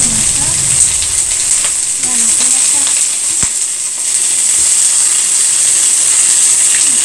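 Chicken legs sizzling steadily as they brown in a hot nonstick pan, with sharp clicks of metal tongs against the pan as the pieces are turned over about halfway through.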